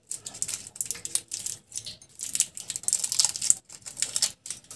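Crinkly wrapper of a 5 Star chocolate bar being torn open and peeled off by hand, crackling in short irregular bursts.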